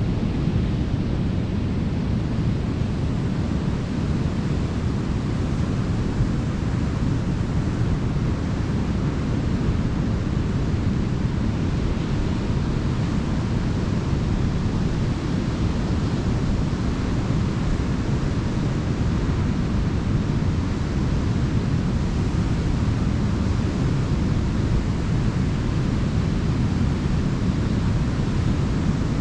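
Ocean waves washing onto a beach: a steady rush of surf with no single crash standing out.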